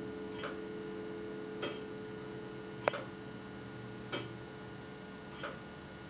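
Tower clock movement ticking slowly, about one tick every 1.2 seconds, with one sharper, ringing click about three seconds in. A steady low hum slowly fades underneath.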